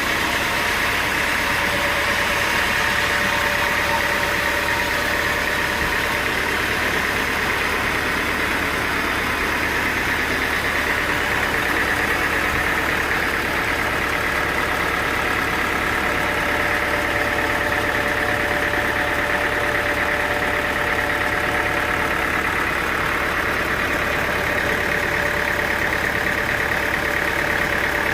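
Sawmill machinery running steadily, a constant engine-like drone with a steady whine over it.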